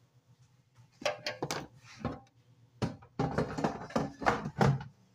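Kitchen handling noises: a run of sharp knocks and taps in quick clusters, starting about a second in, as things are picked up and set down around the counter.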